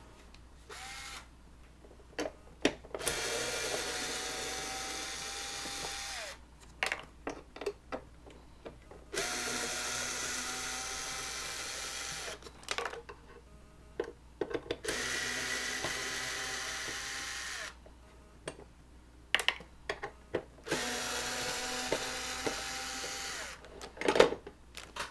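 Electric drill-driver backing out screws from a metal panel, in four runs of about three seconds each, the motor's pitch falling away as each run stops. Short clicks and knocks of handling the screws and plastic parts come in between the runs.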